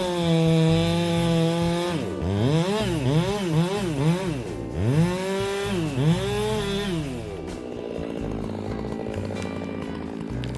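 Two-stroke chainsaw running at high revs, then revving up and down several times before dropping back to a lower, steady speed about seven seconds in.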